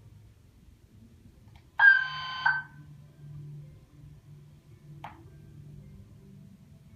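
Building fire alarm sounder giving one loud buzzing tone, just under a second long, about two seconds in. A short click follows near the five-second mark.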